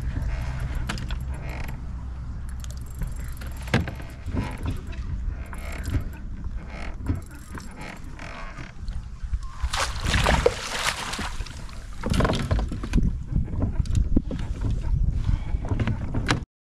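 Fishing kayak moving on the water, with scattered knocks and clicks of gear against the hull and a low steady rumble over the first couple of seconds. A louder rushing burst comes about ten seconds in, and the sound cuts off suddenly just before the end.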